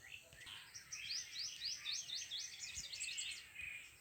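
A bird singing a fast run of repeated, rising high notes, about four a second and quickening toward the end, with fainter calls of other birds around it.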